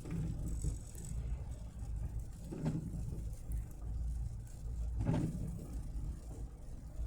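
Car cabin road noise while driving: a steady low rumble of engine and tyres, with two brief louder noises about two and a half seconds apart.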